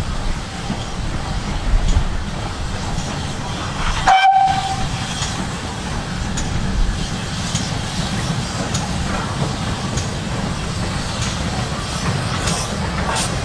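GWR Manor class 4-6-0 steam locomotive No. 7820 moving slowly with its coaches, a steady low rumble. A short whistle toot sounds about four seconds in, and a few light clanks follow near the end.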